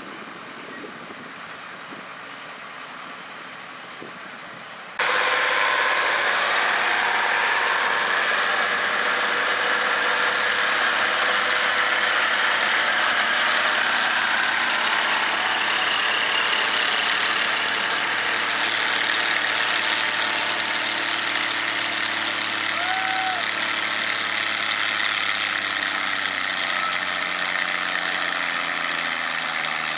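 A tractor engine idling quietly for the first few seconds, then a farm stock tractor engine running under heavy load as it drags a weight-transfer pulling sled. Near the end the engine note falls as the load bogs it down.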